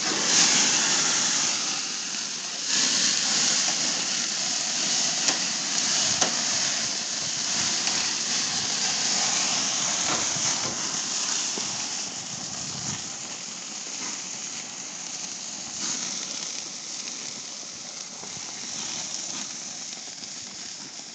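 Sauced hamburger patties sizzling hard on a hot propane grill just after being flipped, a steady loud hiss of fat and sauce on the heat that eases off about halfway through, with a few light clicks.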